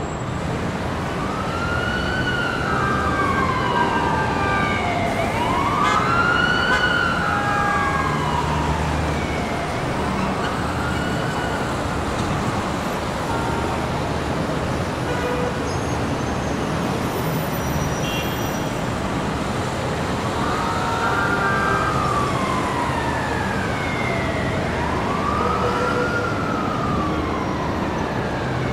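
Emergency vehicle siren wailing, its pitch rising and falling slowly over about four to five seconds a cycle, above steady street traffic noise. The wail drops out for several seconds midway, then comes back.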